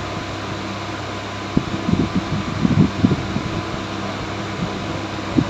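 Steady, fan-like hum of a Nissan Juke running at idle, with a few soft taps in the middle. The engine is idling without jerks after its cylinder-1 ignition coil was repaired.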